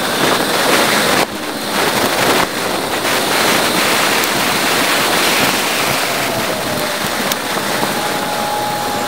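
Steady rushing wind noise on the microphone of a bicycle-mounted camera during a ride, sped up eightfold along with the video so that it comes out as a dense, high hiss.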